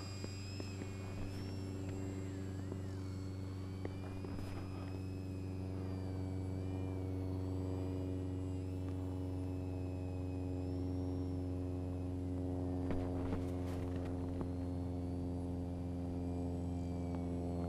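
A steady low hum at an unchanging pitch with evenly spaced overtones, with faint wavering high tones above it during the first half.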